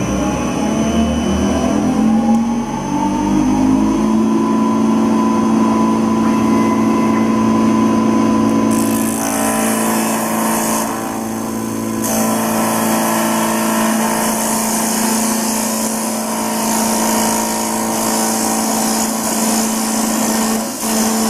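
CNC wood lathe running, its motors spinning up with a rising whine over the first few seconds and then holding a steady hum. From about nine seconds in, a harsh hissing noise joins as the cutter bites into the turning wooden blank.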